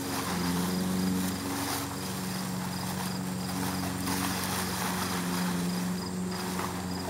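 An engine running steadily in the background, a low hum on several held pitches. Faint insect chirping pulses evenly over it.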